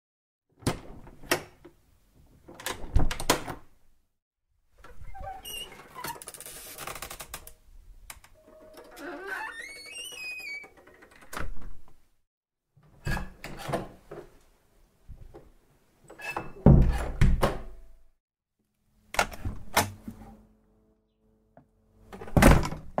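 A run of separate door sounds: latch and handle clicks, doors swinging open and shutting with thuds, and a long wavering hinge creak about ten seconds in. The loudest thuds come about 17 seconds in and near the end.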